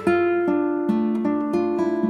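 Background music: an acoustic guitar picking a run of single notes, several a second.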